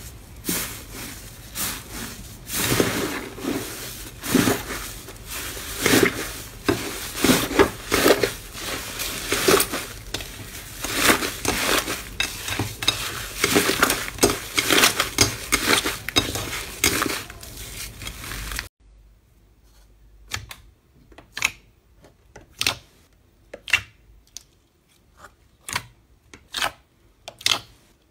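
Hands squeezing and kneading a crumbly green slime, a dense run of crackling and crunching. About two-thirds of the way through it cuts to fingers poking a glossy white slime: separate sharp pops and clicks, one or two a second.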